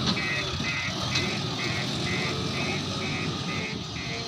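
A vehicle's reversing alarm beeping evenly, about two beeps a second, over a diesel engine running.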